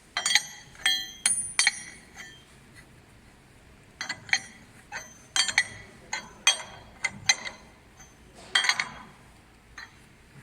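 Sharp metallic clinks and clatters of a wrench and steel screws against the mold holder as it is bolted to the extruder barrel. They come in short clusters every second or two, each clink ringing briefly.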